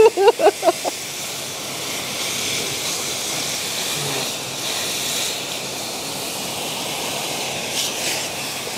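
Steady hiss of a water spray jet washing an orchid pot and its plants, running evenly without a break.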